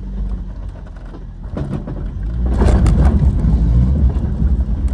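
Off-road 4x4's engine pulling under load as it crawls up a steep rocky climb, growing louder about halfway through, with a few sharp knocks.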